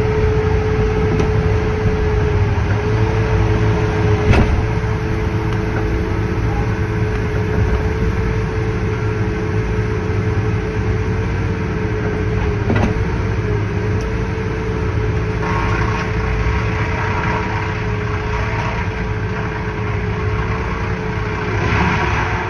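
Heavy diesel logging machinery running steadily, with a steady high whine over the engine. There is a sharp knock about four seconds in and another about thirteen seconds in, and a rougher scraping rises near the end as the grapple lays tree stems onto the chipper's infeed table.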